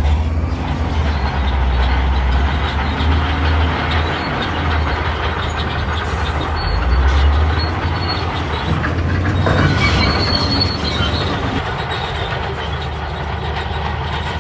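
Crawler bulldozer working: the diesel engine gives a steady low rumble under the clanking and squealing of its steel tracks.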